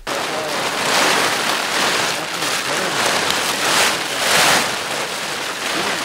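Large white canvas tent being pulled and spread out close to the microphone: loud, continuous rustling and crumpling of the heavy fabric, starting suddenly and swelling in waves.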